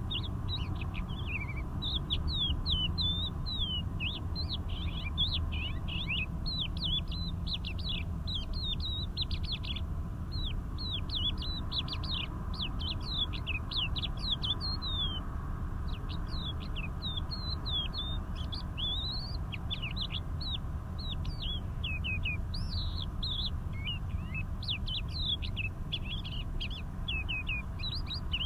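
Crested lark singing a long, nearly unbroken run of quick high notes, many sweeping steeply down in pitch, with one short pause about halfway through. A low steady rumble lies underneath.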